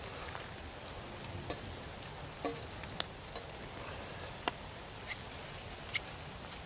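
Sparse, irregular faint clicks and ticks over a quiet background, one every half second or so.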